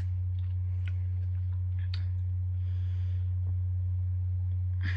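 A steady low hum under a pause in talk, with a few faint short clicks and a soft breath about three seconds in.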